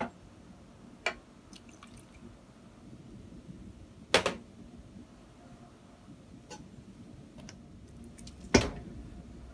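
Vanilla extract poured from a small glass into a steel mixing bowl, among a few separate short clinks and knocks of kitchenware on a stainless steel counter, the loudest near the end.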